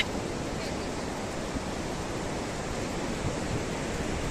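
Steady wind and surf ambience: an even rushing hiss with no separate events.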